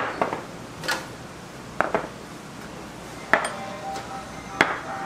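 Small ceramic side-dish plates set down one after another on a wooden table: several sharp clinks and knocks, a few with a brief ring.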